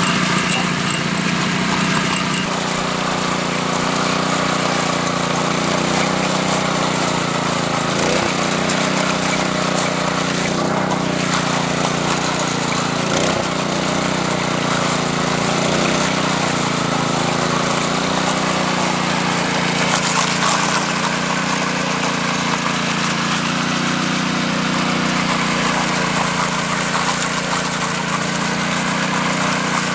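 Small engine of a concrete power trowel running steadily as the machine smooths the fresh concrete surface.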